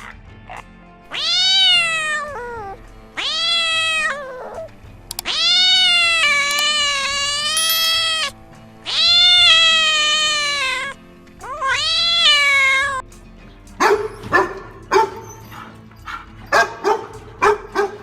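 A cat meowing five times, long drawn-out meows that rise and then fall in pitch. About fourteen seconds in, a dog starts barking in quick, sharp barks.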